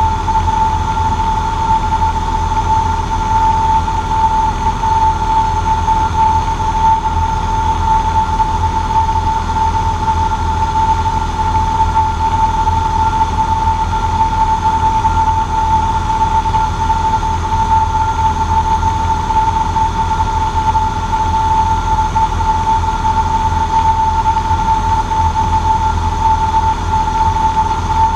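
Cessna 150J's four-cylinder Continental O-200 engine and propeller running steadily in flight, heard inside the cabin: a low rumble with a steady high whine over it.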